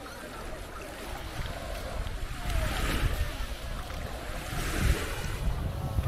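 Small waves washing onto a beach, the wash swelling twice, with wind rumbling on the microphone.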